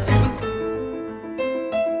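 Background music: a slow piano melody, single notes struck and left to ring.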